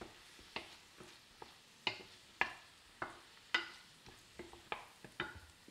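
Wooden spoon stirring chopped fennel, onion, sultanas and pine nuts in a stainless steel frying pan, knocking and scraping against the pan about twice a second, over a faint sizzle of the vegetables frying in oil.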